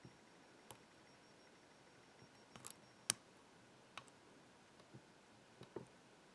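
Faint, scattered clicks of a lock pick and tension wrench working the pins inside a pin-tumbler padlock's core, about half a dozen spread over several seconds, with one sharper click near the middle.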